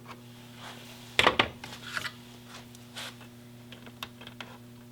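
Small clicks and rubbing of hand-fitting a spring and cable onto the slide of a motorcycle throttle-cable distribution box, with a sharper clatter about a second in and lighter ticks after. A steady low hum runs underneath.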